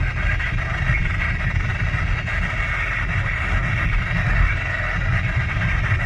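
NOAA Weather Radio receiver hissing with heavy static from very poor reception, with no clear voice coming through, over a steady low rumble of road noise from a moving vehicle.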